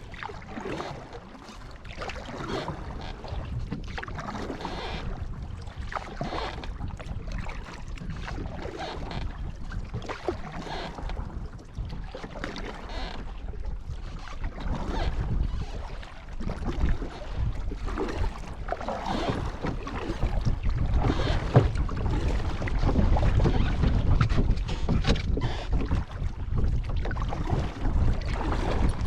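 Kayak paddle strokes dipping and splashing in the water, with wind buffeting the microphone, which grows heavier in the second half.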